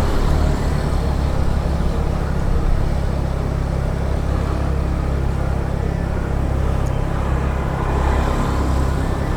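Steady low rumble of a car in motion, engine and road noise heard from inside the car while driving.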